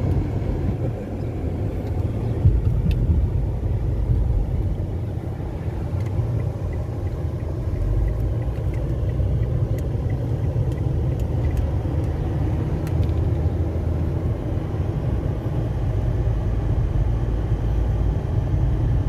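A car driving along: a steady low road-and-engine rumble, with a few faint ticks.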